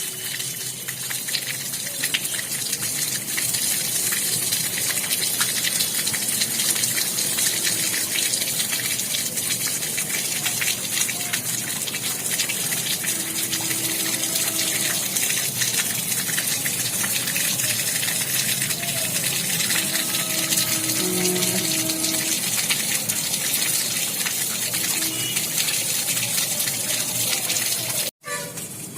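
Water falling steadily from a Sintex tank and splashing onto the floor in an even, hissing gush. It cuts out for an instant near the end.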